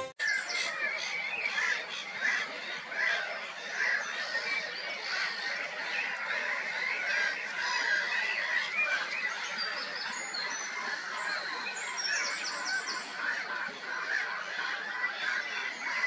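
Black-headed gulls calling in a colony: many harsh, overlapping calls that run on without a break.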